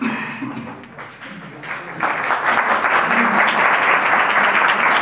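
Audience applauding; the clapping starts abruptly about two seconds in and then goes on steadily.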